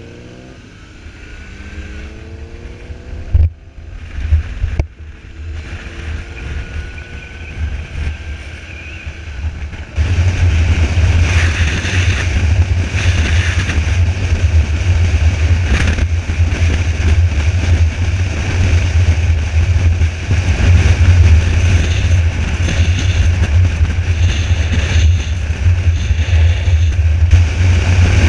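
Motorcycle engine pulling away and accelerating up through the gears, its pitch climbing several times in steps, with a couple of sharp knocks. About ten seconds in it changes to loud, steady wind buffeting on the bike-mounted microphone at highway cruising speed, with the engine running underneath.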